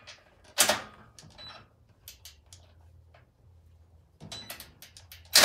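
Metal clicks and clacks as a Porter-Cable 20V cordless ratchet with a deep socket is fitted onto a bicycle axle nut: one sharp clack about half a second in, then a run of lighter clicks near the end. Right at the end, the ratchet's motor starts running.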